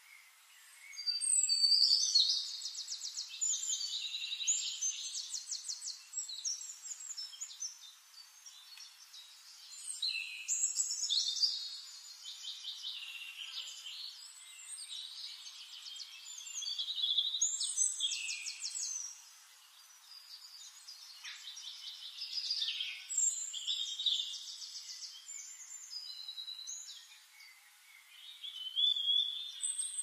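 Oriole nestlings begging at the nest: bouts of high-pitched, rapid chittering, each lasting a few seconds and coming about five times, the loudest near the start.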